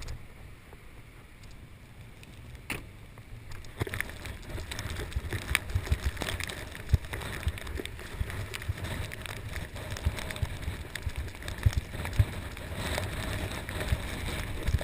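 Wind buffeting the microphone as a low rumble, with irregular knocks from footsteps and handling of the camera while walking. The knocks come thicker from about four seconds in.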